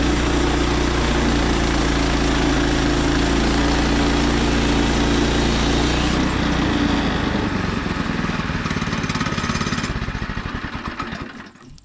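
Gas engine of a Woodland Mills HM122 band sawmill running at high speed through a cut, then throttled down about six seconds in to a pulsing idle, and shut off near the end, dying away.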